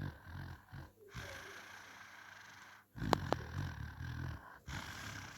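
Snoring: a low, rough sound that comes and goes with each breath, loudest from about three seconds in. There are two sharp clicks about three seconds in.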